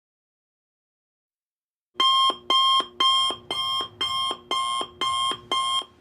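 Electronic alarm beeping rapidly, about two beeps a second, starting about two seconds in after silence.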